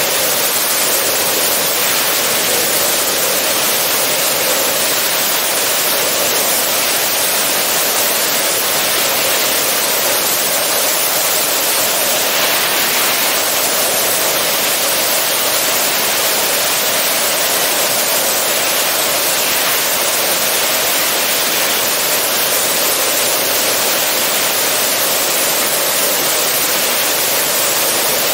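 Robinson R44 helicopter in flight, heard from a camera outside the cabin: a loud, steady rush of wind and rotor noise that holds even throughout.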